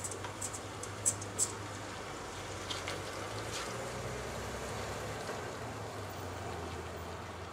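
Baking soda and water fizzing on a corroded car battery terminal, a faint even hiss, with a few light ticks in the first second and a half and a steady low hum underneath.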